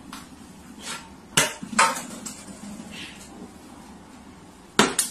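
A plastic water bottle knocked off a shelf lands on a hard floor: two sharp knocks about half a second apart, then another sharp knock near the end.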